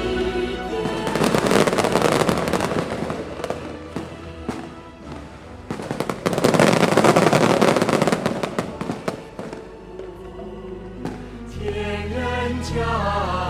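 Fireworks crackling in two dense, loud spells, about a second in and again about six seconds in, over music. Chanted music comes in near the end.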